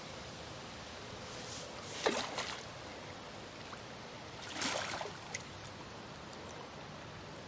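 Water splashing twice, about two seconds in and again near five seconds, as a released wild carp swims off at the surface. A steady faint hiss lies underneath.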